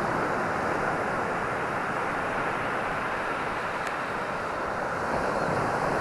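Atlantic surf breaking and washing up a sandy beach, heard as a steady rushing hiss, with wind buffeting the camera microphone.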